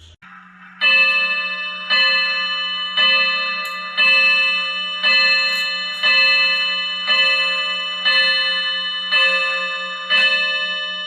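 Vintage Sony mechanical wall clock striking the hour on its gong: ten evenly spaced strokes about a second apart, each ringing and fading before the next.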